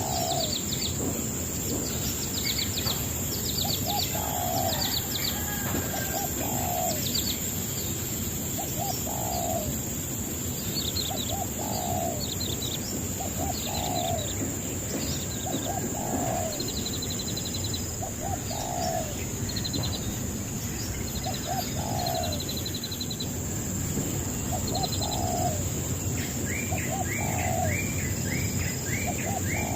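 Birds calling: a low phrase of two or three short notes repeated about every two seconds, over scattered high thin chirps and a steady high hiss. Near the end a fast run of chirps sets in.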